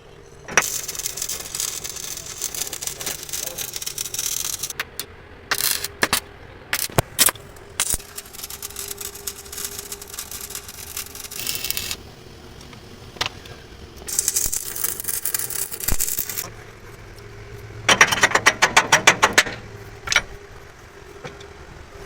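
Truck-workshop tool noise: hissing bursts, sharp metal clanks and rattles, and a rapid rattling burst of about ten blows a second near the end, over a steady hum.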